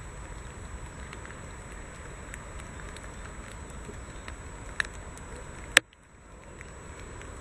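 Rumble and handling noise on a handheld camera's microphone, with faint scattered crackles. A small click comes almost five seconds in and a loud, sharp click near six seconds, after which the rumble drops away for a moment and slowly comes back.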